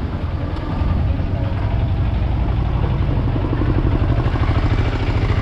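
A motorcycle engine idling close by, a steady low running sound with a fast even pulse, getting louder about a second in.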